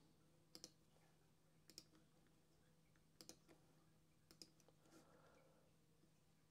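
Faint computer mouse clicks, several short clicks spaced irregularly, some in quick pairs, over a low steady hum.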